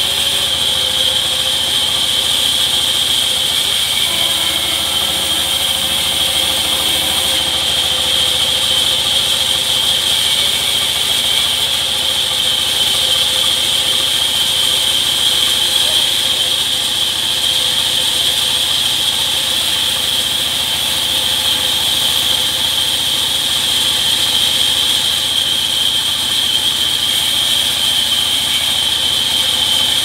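Sawmill band saw running steadily while cutting rain tree timber, with a constant high-pitched whine over the drive's hum.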